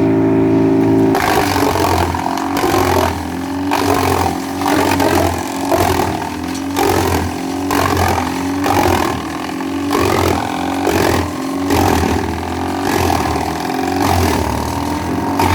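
Greenwich wood chipper's engine running, picking up speed about a second in, then holding with a regular surge in the sound just under once a second.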